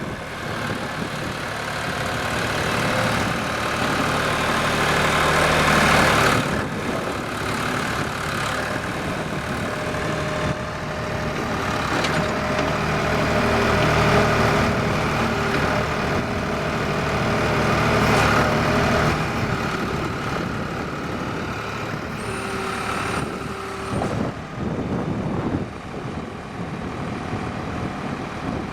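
Backhoe's diesel engine running, revving up and easing off several times. Late on, a brief high-pitched whine.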